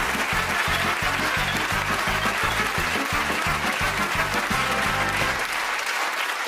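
Music with a steady, evenly pulsing bass beat, played under a studio audience's applause. The bass line stops about five and a half seconds in.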